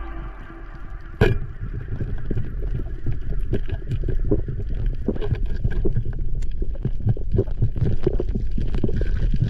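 Underwater, a speargun fires with one sharp crack about a second in. It is followed by a steady run of muffled knocks and crackles as the speared coral trout thrashes against the reef and the diver moves in.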